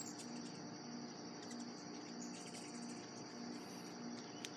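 Faint, steady high-pitched chirring of insects such as crickets, with a low hum that pulses on and off about twice a second underneath.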